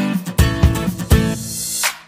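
Background music with repeated strummed chords on a steady rhythm, dropping away sharply right at the end.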